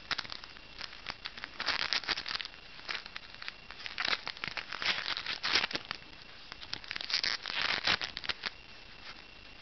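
Crinkling and rustling of a foil booster-pack wrapper being handled and opened, in three bouts with small clicks between.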